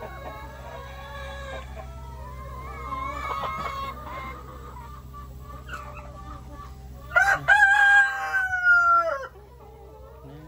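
A flock of hens clucking, with a rooster crowing once about seven seconds in. The crow is one long, loud call of about two seconds that falls away at the end.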